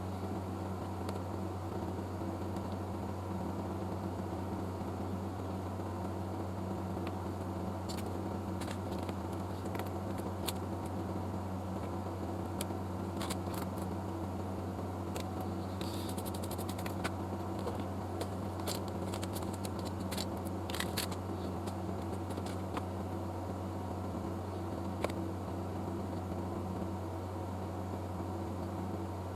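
A steady low mechanical hum like a fan running, with scattered light clicks and ticks, including a quick run of ticks about halfway through.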